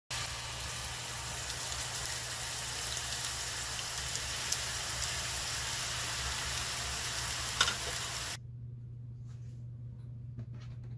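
Oil sizzling hard in a frying pan as gochujang sauce is poured over dried anchovies and stirred with a wooden spatula. The sizzle cuts off abruptly about eight seconds in, leaving a few faint light clicks over a steady low hum.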